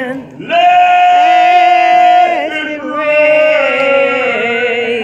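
A man singing, holding long drawn-out notes: after a short breath he holds one note for nearly two seconds, then the melody steps down into lower held notes.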